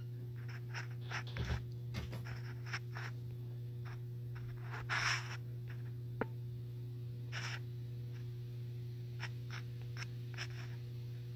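Scattered small clicks and scrapes of fingers tapping and rubbing on a phone close to its microphone, with two longer rustles about five and seven and a half seconds in, over a steady low hum.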